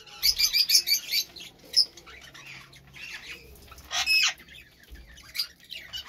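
Budgerigars chirping and squawking, with a quick run of chirps in the first second and one loud call about four seconds in.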